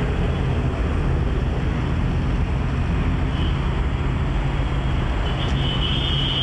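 Steady city road traffic of small cars, Premier Padmini taxis, scooters and a double-decker bus: a continuous low rumble of engines and tyres. A brief high tone sounds near the end.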